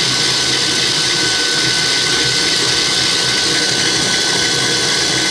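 GE Profile Smart Stand Mixer running at its top speed, 10, its flat beater spinning in an empty stainless steel bowl. The motor and gears make a loud, steady noise with a thin, even whine. The machine sounds really rattly at this speed, enough to rattle the counter.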